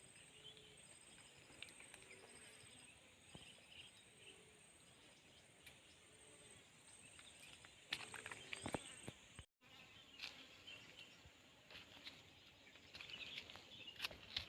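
Faint insects chirping in short, high, pulsed trains that repeat over and over. Several knocks come a little after halfway, and the sound cuts out for an instant shortly after.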